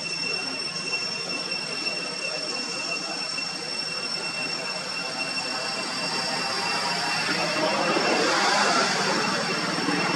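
Steady background noise with a continuous thin high-pitched whine, and a broad rumbling noise that swells from about six seconds in and peaks near eight to nine seconds, like a vehicle or aircraft passing.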